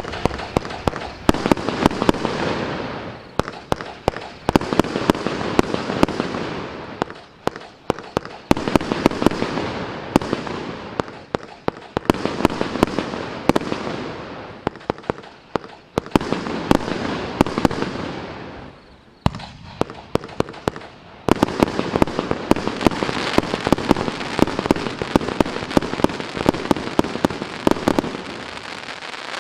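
Apollo shot barrage firework cake firing in rapid succession: many sharp bangs over dense crackling. The firing comes in waves every couple of seconds, drops off briefly about two-thirds of the way through, then picks up into a continuous run.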